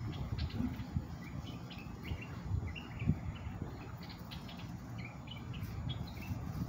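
Small birds chirping: many short, high chirps scattered throughout, over a low rumble of background noise.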